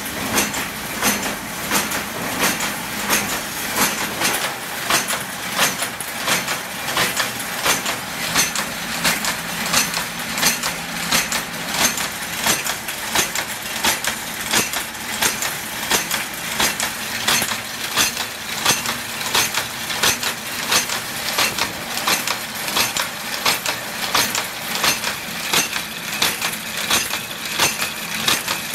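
Wire straightening and cutting machine running, its cutter chopping stainless steel wire into rods in an even rhythm of sharp metallic clacks, about two a second, with a clinking of metal throughout.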